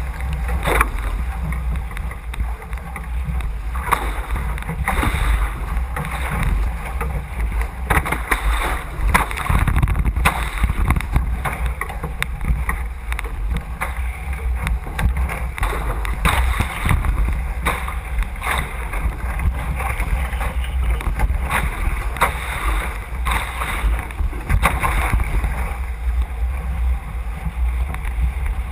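Water rushing and splashing along an A Class catamaran's hull as it sails upwind, with irregular slaps of spray. Wind buffets the boat-mounted microphone with a heavy rumble.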